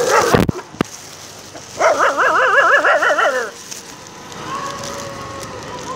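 A stray dog whining with a fast wavering pitch for about a second and a half, then a fainter, steadier whine near the end. A short falling yelp comes right at the start.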